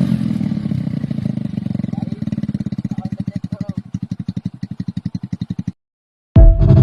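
Motorcycle engine idling, its exhaust beat pulsing several times a second, cutting off suddenly near the end. A loud burst of music starts just after.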